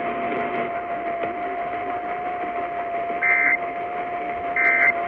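AM radio hiss and static with a steady whistling tone, broken by two short Emergency Alert System end-of-message data bursts, a rapid two-tone warble, about three seconds in and again about a second and a half later. They are the SAME code tones that sign off the broadcast warning.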